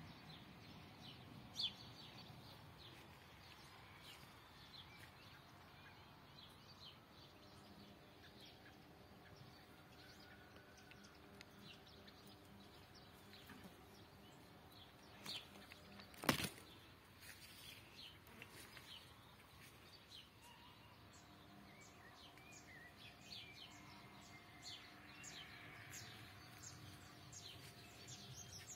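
Faint chirping of wild birds, many short high calls scattered throughout, over a faint low steady hum. A single sharp click sounds about sixteen seconds in.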